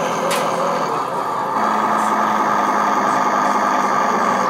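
Radio-controlled model tank running, its engine-sound unit putting out a steady diesel-like drone that grows louder about a second and a half in as the tank pivots round. A short click comes just after the start.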